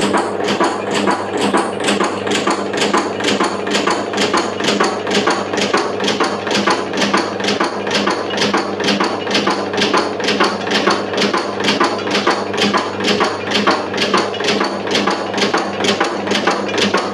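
Motor-driven camphor tablet press running: its punch clacks at an even rhythm of about four strokes a second, each stroke pressing a camphor tablet, over a steady motor hum.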